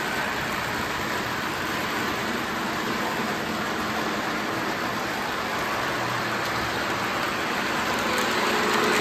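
Lionel model train running on three-rail toy track, its wheels and motor giving a steady rumbling whir that grows louder about eight seconds in as the train comes closer.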